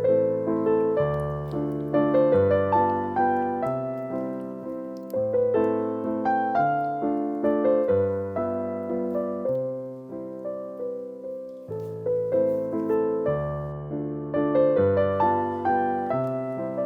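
Background piano music: a gentle, flowing piece of broken chords over low bass notes.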